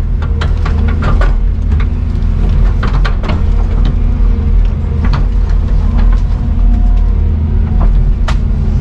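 Steady low drone of a running vehicle heard from inside, with scattered short clicks and rattles over it.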